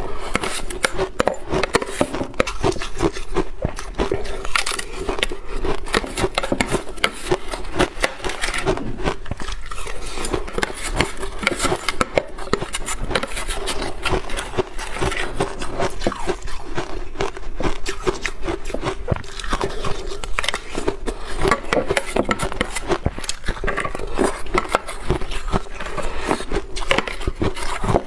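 Close-miked crunching and chewing of shaved ice mixed with milk powder: a dense, continuous stream of small crisp crackles, with a metal spoon scraping the inside of a plastic blender jug.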